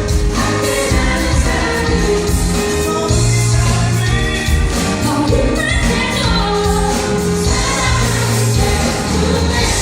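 Live band performing a song: voices singing over sustained bass notes and band accompaniment.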